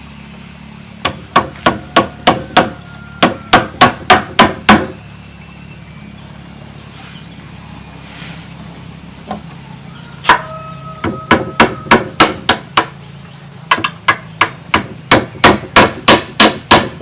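Hammer blows on bamboo in quick runs of about three a second, with a pause of several seconds in the middle; a faint ring follows some of the blows.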